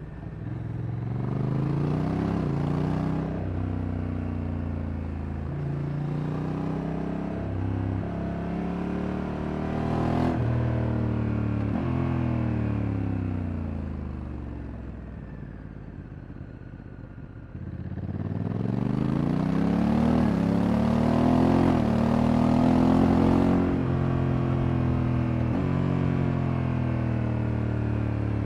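Honda Africa Twin Adventure Sports DCT's parallel-twin engine accelerating through the gears. The note climbs and drops back at each upshift, eases off about halfway through, then pulls hard again through several shifts and settles to a steady run.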